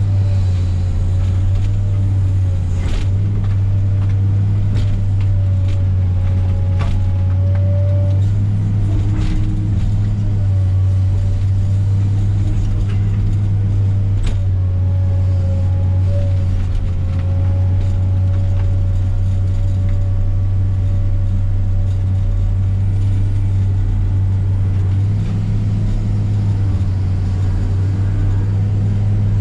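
Komatsu PC300 excavator working, its diesel engine running steadily under load with a hydraulic whine that wavers slightly in pitch. Occasional sharp cracks and knocks from the brush being handled.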